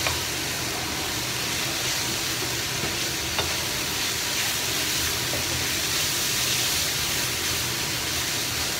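Sliced French beans, minced meat and carrot sizzling steadily in a non-stick wok while a wooden spatula stirs and tosses them, with a single sharp click about three and a half seconds in.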